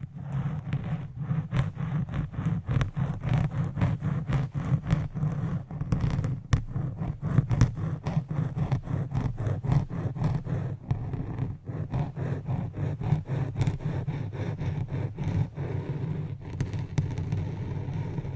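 ASMR trigger sounds: rapid scratching and tapping, several small clicks a second over a steady low hum, starting and stopping together.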